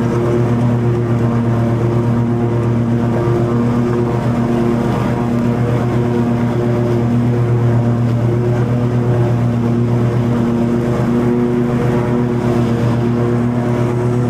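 Toro TimeCutter 50-inch zero-turn mower running at steady mowing speed, its engine and spinning blades cutting long grass. A steady low drone with a wavering upper hum.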